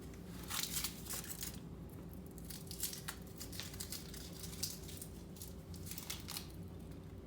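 Crinkling and tearing of candy wrappers in several short bursts, as Reese's peanut butter cups are unwrapped.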